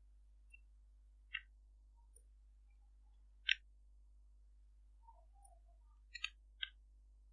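Five sharp clicks from a computer mouse and keyboard during code editing: one about a second in, a louder one a little after the middle, then a quick pair and a single click near the end.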